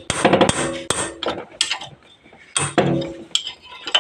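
Metal spanner clinking and knocking against the cylinder-head top nuts of a Hero Splendor Plus engine as they are loosened, in two bursts of sharp metallic clicks with a brief ring.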